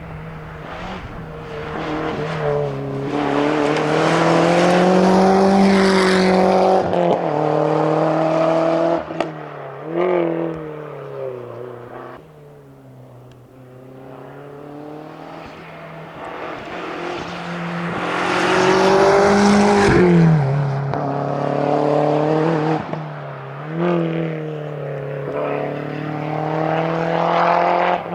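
Seat Ibiza rally car's engine revving hard under full acceleration, its pitch climbing and then dropping with each upshift, as the car approaches and passes at speed. It fades, then a second flat-out pass builds with more upshifts.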